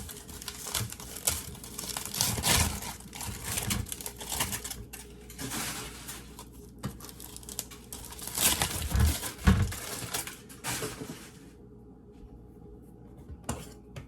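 Aluminium foil crinkling and tearing as it is peeled off baked potatoes, with a couple of dull knocks about nine seconds in. The crinkling stops near the end, leaving a few light clicks.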